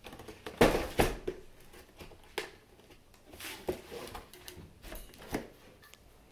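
Cardboard box being cut open and handled: a knife slicing and scraping through the cardboard flaps, with rustling of the box and plastic wrapping. Two louder scrapes come about half a second to a second in, followed by softer scattered rustles and knocks.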